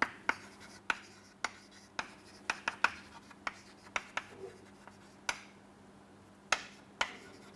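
Chalk writing on a chalkboard: a string of sharp taps and short scratches as letters are written, with a brief pause about two-thirds of the way through.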